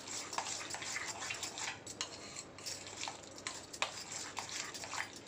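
Metal spoon stirring a wet mix of soaked sago pearls and curd in a stainless steel bowl, with quick, repeated scrapes and clinks against the bowl.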